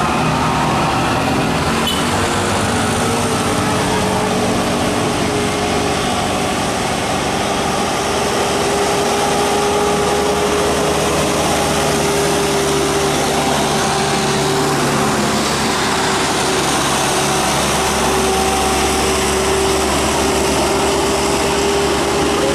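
A bus on the move, heard from aboard: steady engine drone and road noise with a steady whine that holds nearly one pitch.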